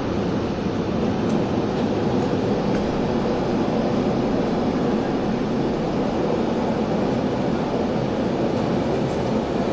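Steady, unbroken rumble of vehicle noise in a city street.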